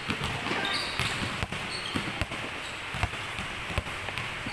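Basketballs being dribbled on a hard court floor: sharp bounces at an uneven rhythm, a few each second, from more than one ball.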